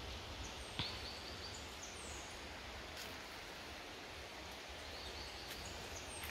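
Quiet outdoor ambience: a steady low hiss and rumble, with a few short high chirps and swoops scattered through it and a sharp click about a second in.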